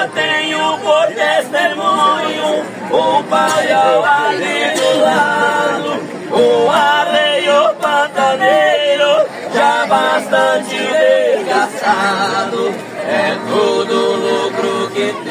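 A group of men singing a Brazilian folia verse together in harmony, with long held lines that slide between notes.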